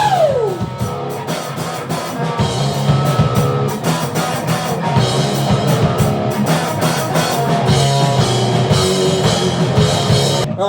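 Hard rock band playing live: electric guitar, bass and drum kit, opening with a note sliding steeply down in pitch. The music cuts off abruptly near the end.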